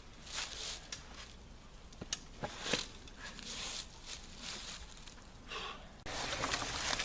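Footsteps through dry forest leaf litter: irregular rustling steps with a few sharp snaps of twigs. The background changes abruptly about six seconds in.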